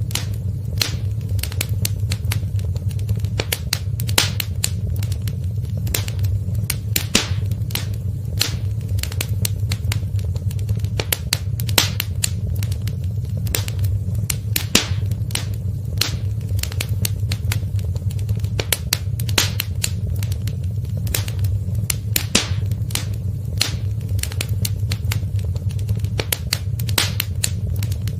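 Wood fire in a fireplace crackling steadily: many sharp irregular pops and snaps over a low, even rumble of the flames.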